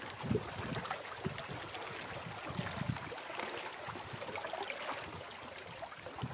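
Small waves lapping and trickling among shoreline rocks in choppy water, with irregular low wind buffets on the microphone.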